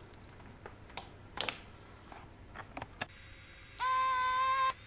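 A few faint clicks, then near the end the vacuum pump of an electronic desoldering gun buzzing for about a second as it sucks molten solder off an IR LED's leads on the circuit board. The buzz slides up in pitch as the pump starts and down as it stops.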